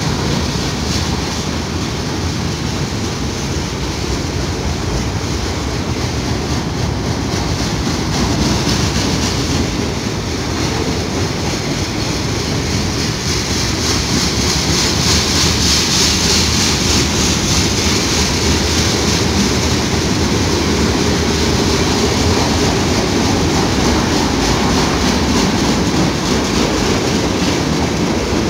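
A freight train of tank cars and covered hoppers rolling past, its steel wheels clattering over the rail in a steady rumble. A high hiss swells for several seconds around the middle.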